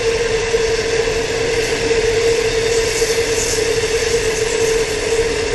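A long freight train's hopper wagons rolling steadily past on the rails: a continuous rolling noise with one steady, held tone running through it.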